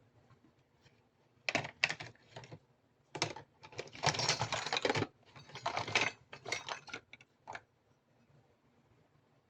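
Small plastic toy pieces clicking and rustling as they are handled and unpacked, in quick irregular clusters, with a denser rustling stretch about four seconds in.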